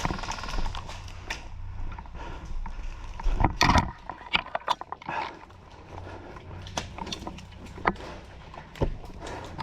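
Footsteps and handling noise as an airsoft player moves, with irregular clicks and knocks and a louder cluster of scuffs about three and a half seconds in.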